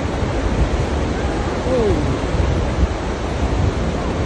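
Flash-flood torrent rushing: a loud, steady, dense rush of water with heavy low rumble.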